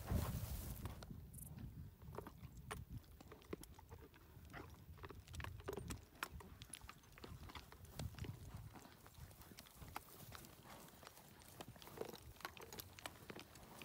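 Horses cantering over dry prairie grass: an irregular run of soft hoofbeats, thuds and clicks.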